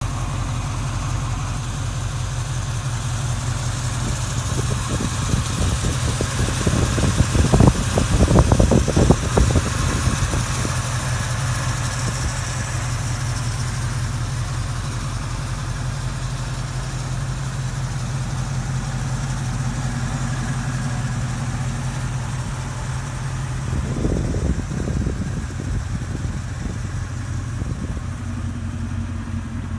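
Chevrolet El Camino engine idling steadily with the hood open, with two louder, rougher stretches, about a quarter of the way in and again about four-fifths of the way in.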